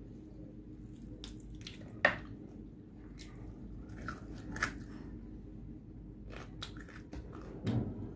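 Close-up eating sounds of rice and fried fish eaten by hand: scattered crisp clicks and crunches with chewing, the sharpest click about two seconds in and a duller knock near the end.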